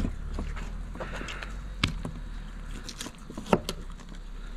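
A fillet knife cutting through a flounder behind the head. A few sharp knocks and clicks come as the blade works through the bone and the fish is turned over on the cutting board, over a low steady hum.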